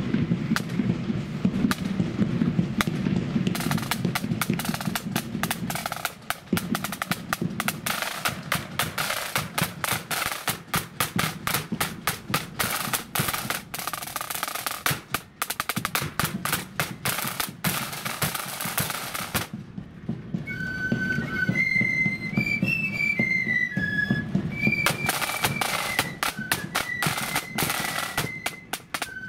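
Marching band's snare drums and bass drum beating a fast street beat with rolls. The drumming stops briefly about twenty seconds in, a high pitched melody that fits the band's flutes strikes up, and the drums come back in a few seconds later.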